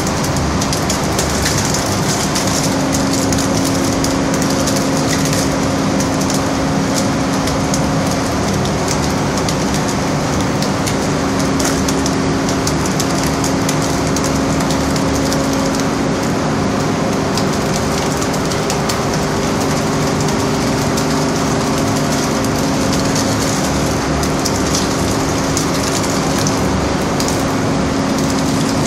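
Loud, steady din of fish-processing plant machinery running: a constant hum with a dense crackle over it as ground fish material pours through the chutes and hoppers.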